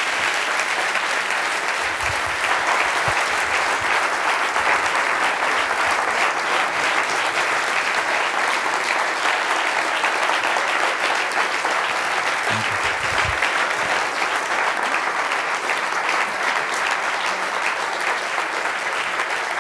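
Long, steady applause from a large audience clapping together.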